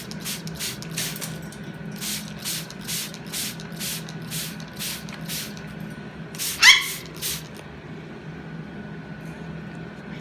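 Hand spray bottle misting pet Goffin's cockatoos: rapid short squirts, about two a second, in runs with pauses. About six and a half seconds in, one cockatoo gives a single short, rising squawk, the loudest sound.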